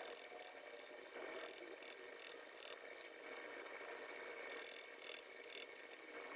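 Short scraping strokes of a thin wooden stick spreading and pressing five-minute epoxy into countersunk bolt holes in a wooden chair seat. There are several quick scrapes in a row, a pause of about two seconds, then a few more.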